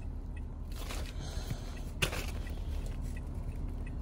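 Light handling of a vinyl owner's-manual folder and the booklets in it, with two soft taps, over a steady low hum in the car cabin.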